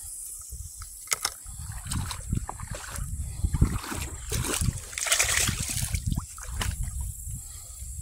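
River water sloshing and splashing around a wading angler's legs, with a few sharp clicks and a louder stretch of splashing about five seconds in.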